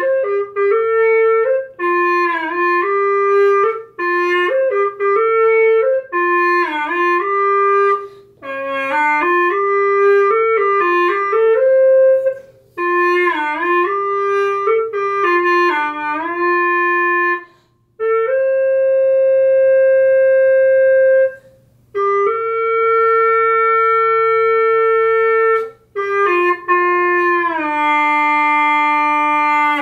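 Ebony wood bawu, a Chinese free-reed pipe, playing a slow, reedy melody: phrases of notes with dipping bends and slides, broken by short breaths, then two long held notes and a phrase stepping downward near the end.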